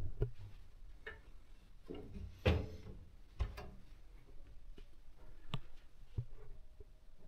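An electric oven's door shut with a thud about two and a half seconds in, among scattered light clicks and knocks from handling.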